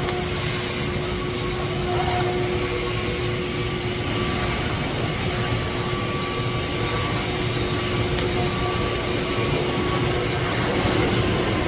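Welding arc running steadily on a tube: a continuous hiss with a constant hum held throughout.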